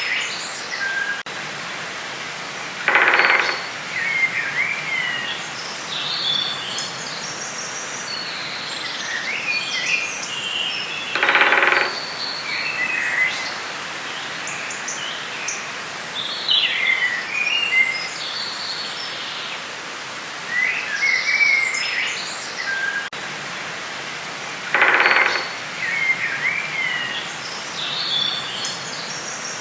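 Forest ambience: many birds chirping and twittering over a steady background hiss. A louder, lower-pitched call, under a second long, stands out three times: about three seconds in, near the middle and near the end.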